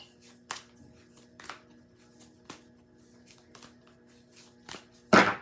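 Deck of tarot cards being shuffled by hand: soft card flicks and clicks about every half second, with one louder swish of the cards near the end.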